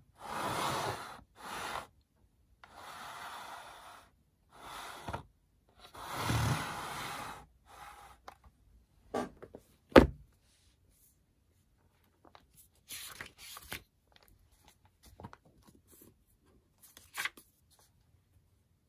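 Handling noise on a desk: a plastic highlighter stand rubbed and slid across the desktop in several short scraping bursts. About ten seconds in a notebook is set down with one sharp knock, the loudest sound, followed by a few light rustles and taps.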